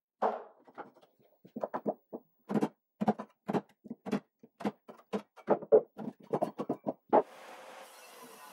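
A quick, irregular series of hollow wooden knocks and thunks, as of plywood panels being handled and set against each other. Near the end a steady machine hum sets in.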